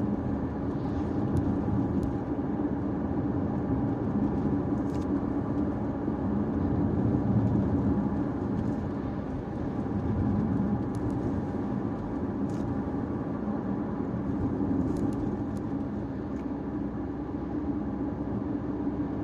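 Caoa Chery Tiggo 5x on the move: steady engine and tyre-on-road noise, with a few faint ticks.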